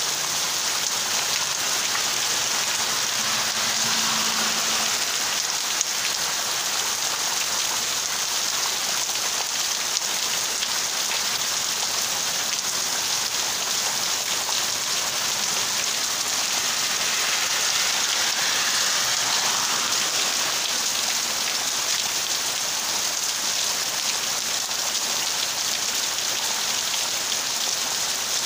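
Heavy rain falling steadily in a downpour.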